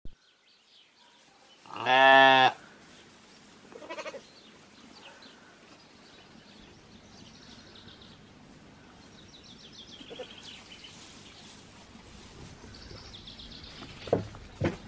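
Skudde sheep bleating: one loud, deep, drawn-out bleat about two seconds in, then a shorter, fainter quavering bleat. A couple of sharp knocks come near the end.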